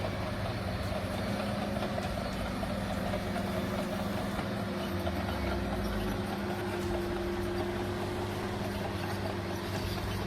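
Bulldozer engine running steadily at an even pitch.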